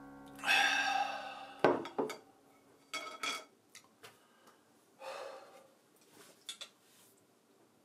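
A heavy breath out after eating, then a ceramic noodle bowl and wooden chopsticks knocking and clinking as they are handled and set down on a table: two sharp knocks, then two ringing clinks. Another breath and a few light clicks follow.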